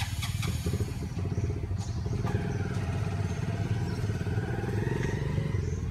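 A motor vehicle engine running steadily: a low rumble with rapid, even firing pulses that grows fuller about two seconds in.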